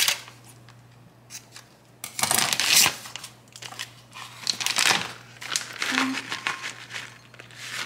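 Plastic bag of shredded Parmesan crinkling as it is handled and shaken out over a glass bowl, in several rustling bursts, the loudest about two seconds in.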